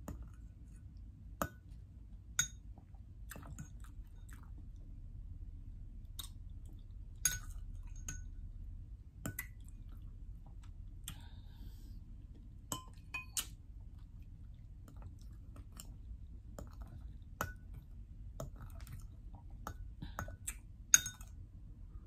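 Chewing of soft kiwi fruit: many small wet mouth clicks and smacks at an uneven pace. A few louder, briefly ringing clinks of a metal spoon against the glass bowl, the loudest near the end.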